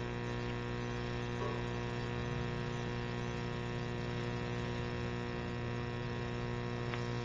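Steady electrical mains hum in the recording: a low, unchanging buzz with a stack of overtones.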